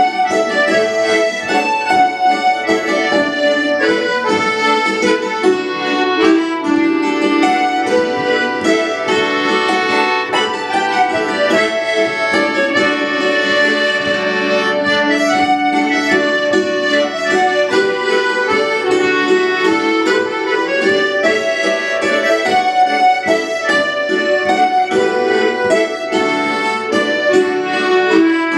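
Live acoustic folk band playing a traditional tune together: fiddle, mandolin, hammered dulcimer and squeezeboxes, with the squeezeboxes most prominent.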